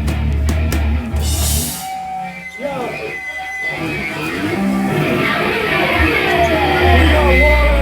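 A heavy metal band playing loud through the PA, drum kit and low bass, breaks off sharply about two seconds in after a short crash. Guitar notes and shouting voices follow between songs, and a low bass note swells back in near the end.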